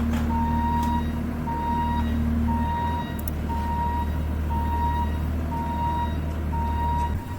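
Bobcat T650 compact track loader backing up: its reverse alarm beeps about once a second over the steady hum of its diesel engine.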